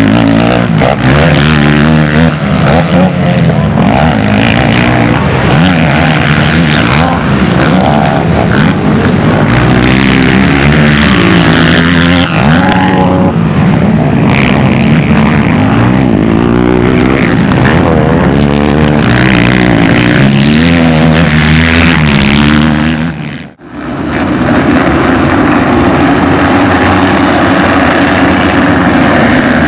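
Race quad engine revving up and down as it is ridden through dirt-track corners, its pitch rising and falling with each throttle change. After a brief cut about three-quarters of the way in, a row of quads at the starting gate runs together in a steadier drone.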